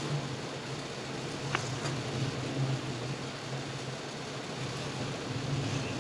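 Steady low mechanical hum over an even hiss, with a single sharp click about one and a half seconds in.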